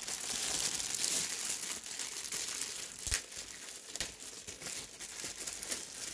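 Clear plastic bag crinkling as a packaged accessory kit is handled, densest over the first two seconds or so, with a couple of light knocks about three and four seconds in.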